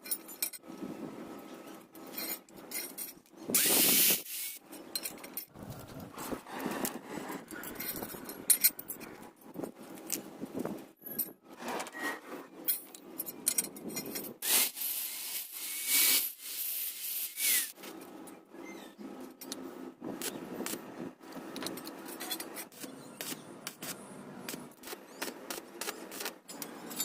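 Irregular scraping and rubbing of hand-tool work on a workpiece, broken by scattered clicks, with louder stretches of harsh noise about four seconds in and again between about 14 and 17 seconds.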